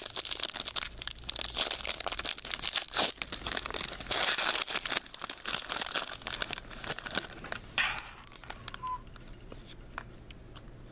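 Plastic wrapping on trading-card packs being torn and crinkled open: a dense run of crackling that dies down about eight seconds in to a few faint clicks.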